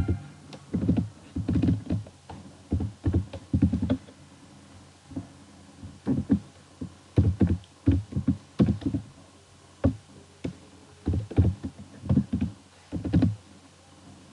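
Computer keyboard typing in short irregular bursts of keystrokes, with a pause about four to six seconds in.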